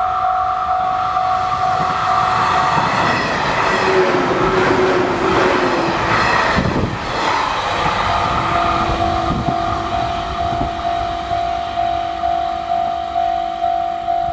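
Japanese level-crossing warning bell ringing at about two strikes a second, drowned out for about five seconds from three seconds in by electric trains (a 185 series limited express and a 211 series train) rushing through the crossing, after which the bell rings on clearly.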